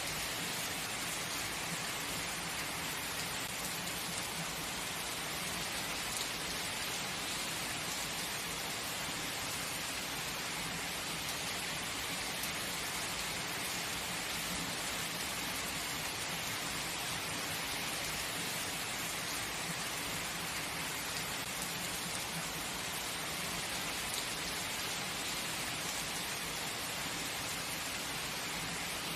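Steady heavy rain, an even hiss of falling rain without letup.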